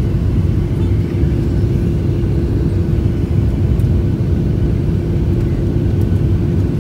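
Jet airliner cabin noise at a window seat during the descent to land: a steady, loud rumble of engines and rushing air with a constant low hum running through it.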